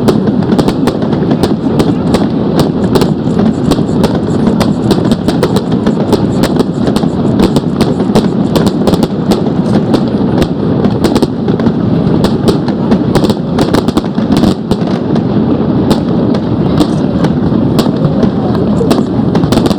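Fireworks display: a dense, continuous barrage of bangs and crackles, many per second, over a steady rumble.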